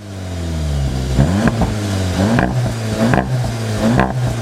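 SEAT Leon Cupra 300's turbocharged 2.0-litre four-cylinder idling through its exhaust, blipped four times about a second apart, each rev rising quickly and falling back to idle.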